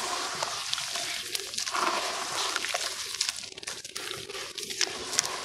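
Hands squeezing and crumbling lumps of wet ash in a plastic tub of water: sloshing and squishing with a dense patter of small gritty crackles.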